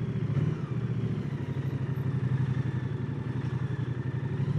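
Moto Guzzi V100 Mandello's 1042 cc transverse V-twin running at low revs in slow traffic, a steady rhythmic engine pulse.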